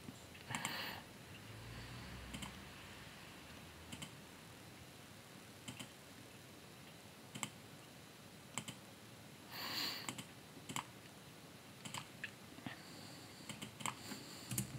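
Faint, scattered clicks of a computer keyboard and mouse, about one every one to two seconds. Two short breathy noises come in, one about half a second in and one near the middle.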